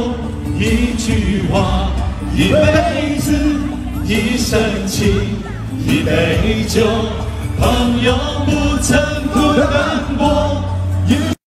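Men singing a pop song into microphones over an amplified backing track. The sound drops out abruptly just before the end.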